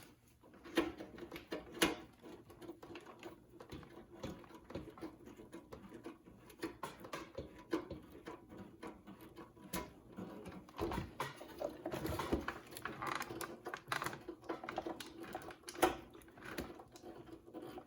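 A screw being turned by hand with a screwdriver into a tight, undersized hole: irregular small clicks, ticks and scraping as it grinds in bit by bit.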